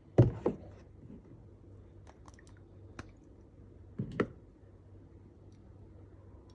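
Glass perfume bottles being handled, knocking and clicking: a sharp knock just after the start and a second right after it, a few light clicks around two seconds in, one click at three seconds, and a double knock about four seconds in.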